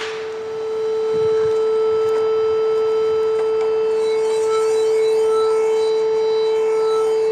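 Steady pure test tone a little below 500 Hz from a phone function-generator app, played through a small speaker into a PVC resonance tube while its plunger is slid. The tone swells louder about a second in and then holds steady, as the air column comes near resonance.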